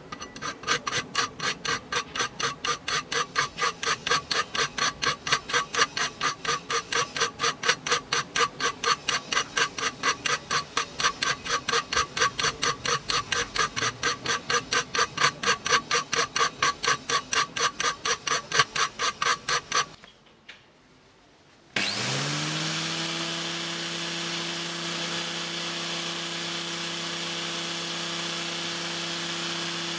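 A hand tool is stroked rapidly back and forth on metal at about three even strokes a second, with a ringing scrape on each stroke. After a pause near the two-thirds mark, a small electric power tool spins up and runs steadily.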